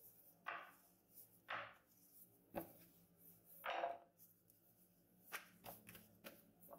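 Rolling pin working croissant dough on a floured wooden board: a few faint short swishing strokes, with a sharp knock about two and a half seconds in and the longest stroke around four seconds in. Lighter taps follow near the end.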